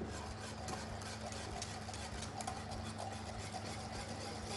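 Wire whisk stirring a liquid mixture in a pot, with light irregular scraping and clicking against the pot.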